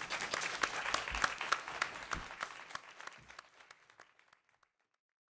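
Audience applauding, the dense clapping dying away over about four seconds until silence.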